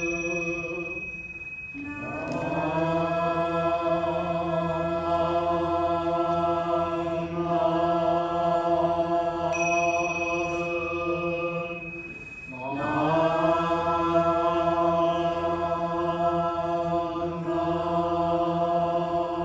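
Jōdo Shinshū Buddhist sutra chanting: voices hold long, drawn-out tones on a steady pitch. They break for breath twice, near the start and about two-thirds through, each new phrase sliding up into its note.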